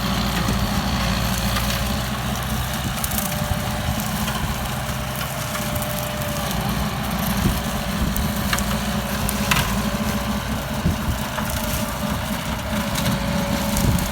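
Kubota M9540 tractor's diesel engine running steadily under load while it drives a rotary implement shredding pineapple plants, with a couple of sharp ticks a little past halfway.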